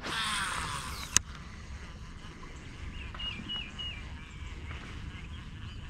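Baitcasting reel's spool whirring as a cast goes out, for about a second, stopping with a sharp click. A bird gives a few short calls a couple of seconds later.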